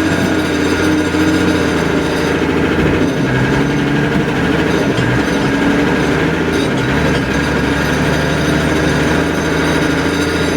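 A large engine running steadily and loudly, with a dense rattling texture that does not let up.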